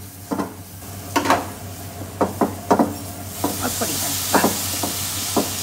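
A spatula stirring and tossing chickpeas in a kadai, giving a run of short scraping knocks against the pan over a frying sizzle. The sizzle grows louder and stays up from about three and a half seconds in.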